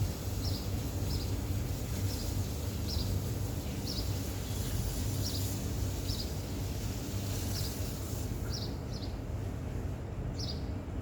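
A bird chirping outdoors: short high chirps repeating at uneven intervals over a steady low background hum.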